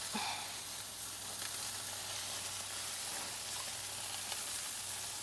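Buttered chicken wings sizzling on a grill, a steady hiss that doesn't let up.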